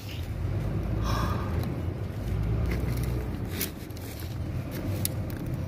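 Steady low mechanical rumble, with a few sharp metal clicks and taps from hand tools worked on a hydraulic directional valve body.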